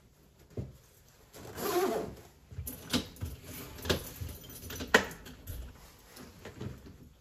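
Handling sounds from a person at a front door: a rustle about one and a half seconds in, then three sharp clicks about a second apart, the last one loudest.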